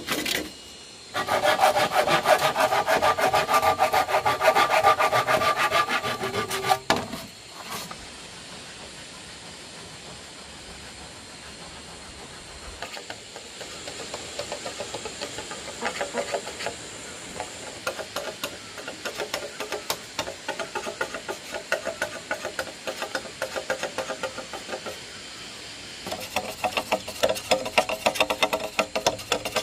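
Hand saw cutting through a green bamboo pole in fast back-and-forth strokes that ring, stopping about seven seconds in. A long, quieter stretch of a shallow stream running follows. Near the end, a machete scrapes along a bamboo pole in rapid strokes.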